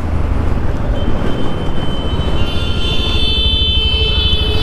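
Motorcycle running in traffic with a steady low rumble of engine and wind on the microphone. A vehicle horn sounds in the second half, held for about two seconds.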